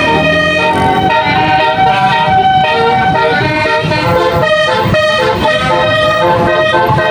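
A bus's multi-tone telolet air horn playing a song melody, its loud pitched notes stepping from one to the next.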